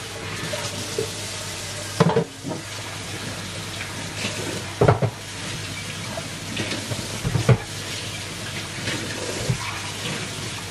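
Kitchen tap running into a sink while dishes are washed by hand, with dishes and pots knocking against each other a few times, about two, five and seven and a half seconds in.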